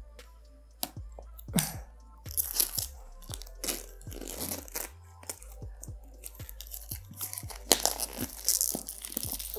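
Clear plastic shrink wrap being torn and peeled off a cardboard phone box, crinkling in irregular bursts with small clicks, loudest near the end.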